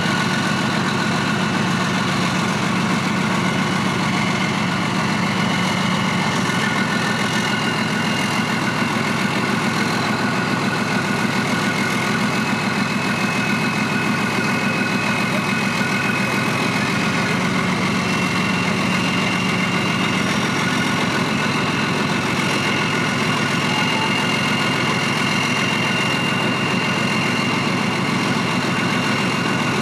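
Leguan bridge-laying tank's V12 diesel engine idling steadily, with a faint high whine over it.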